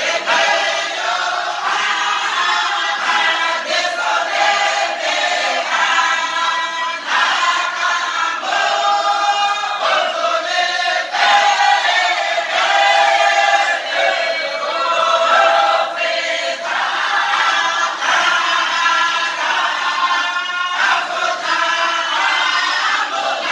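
A group of men singing a song together in chorus, without a break.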